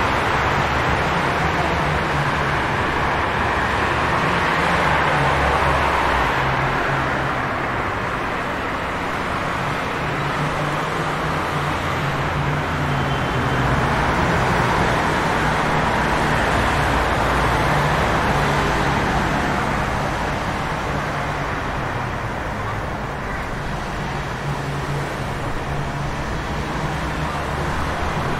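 Steady city street traffic: car engines rumbling low under a hiss of tyres, growing louder and softer over several seconds as vehicles pass.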